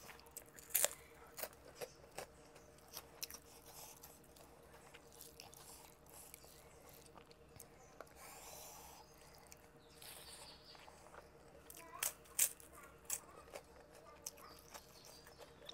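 Close-up eating sounds: crisp crunching bites of fried Chinese papad and chewing, with scattered sharp crackles, the loudest near the start and again late on.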